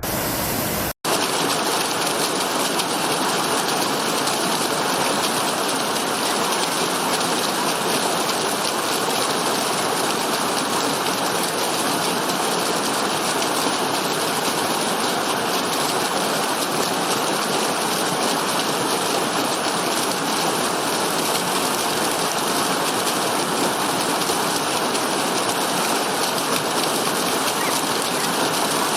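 Waterfall water rushing and splashing, a steady, even roar; the sound cuts out for an instant about a second in, then carries on unchanged.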